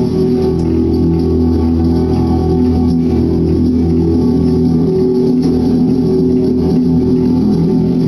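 Live band of electric guitars and drums playing loud, steady music, the guitars holding sustained chords.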